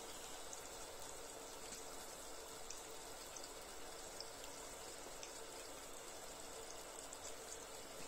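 Baozi (meat-filled buns) deep-frying in hot oil: a faint, steady sizzle with scattered small pops and crackles.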